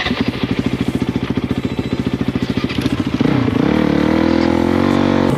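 Enduro motorcycle engine running with a fast, even pulsing at low revs, then revving up a little over three seconds in and holding the higher revs.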